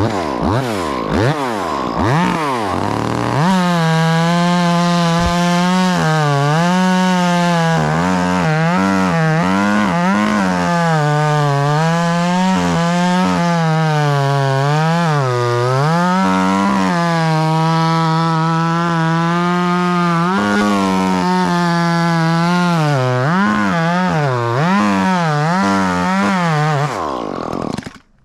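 Chainsaw revved a few times, then held at full throttle cutting through liquidambar (sweetgum) wood, its pitch dipping again and again as the chain bogs under load. It winds down near the end.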